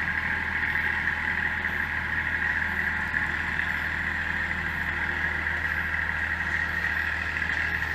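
Steady mechanical hum with a high hiss that holds the same pitch and level, like a motor or fan running.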